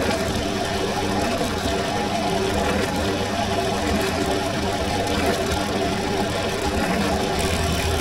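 Benchtop drill press motor running steadily while a fine bit drills stitch holes through a leather sheath face. Its low hum grows stronger near the end.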